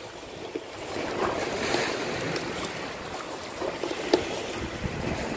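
Wind buffeting the microphone over sea waves washing against breakwater rocks, with a few faint clicks.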